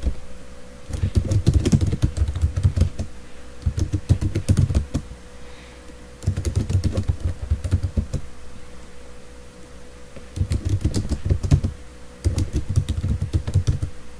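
Computer keyboard typing in five bursts of rapid keystrokes with short pauses between, as configuration commands are entered. A faint steady hum lies underneath.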